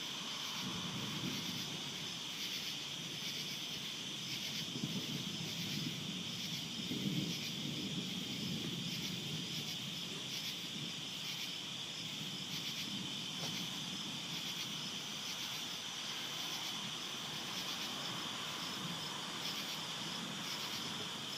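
Night chorus of crickets and other insects: a steady high trilling, with a higher pulsing chirp repeating about twice a second. Underneath runs a low, uneven haze of noise.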